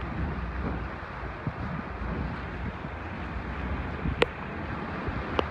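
Low, steady rumble of a car moving slowly along a wet street, with wind noise on the microphone and a single sharp click about four seconds in.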